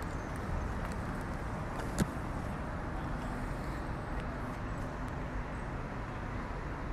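Steady road traffic noise, with one sharp click about two seconds in.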